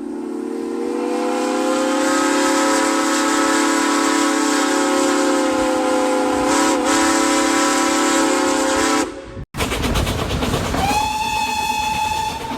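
Steam whistle on an Andrew Barclay works locomotive giving a long, steady blast of several notes together that stops suddenly about nine seconds in. After a short break, steam hisses and a second, higher whistle note sounds for about a second and a half near the end.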